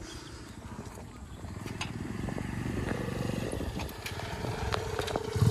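Steady buzzing drone of a kite hummer (sendaren) on a high-flying kite, dropping away at the start and coming back about three seconds in, over the low rumble of a motorcycle engine.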